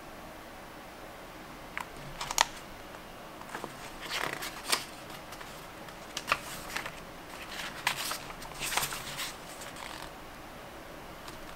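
Paper pages of a thin handmade book rustling and being turned by hand: a run of short crisp rustles and flicks, starting about two seconds in and stopping shortly before the end, over a steady faint hiss.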